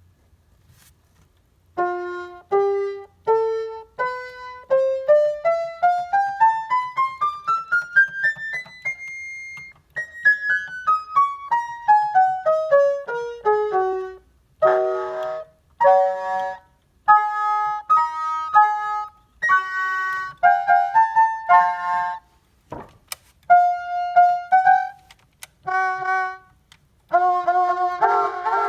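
Casio SK-1 sampling keyboard being played: a few single notes, then a scale run stepping up to a held top note and back down, then chords and notes in several different instrument voices.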